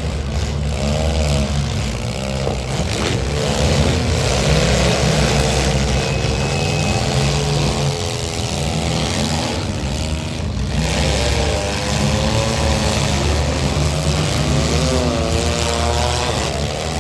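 Several compact demolition-derby cars' engines revving hard at once, their pitch rising and falling as the drivers accelerate, ram and spin their wheels in the dirt.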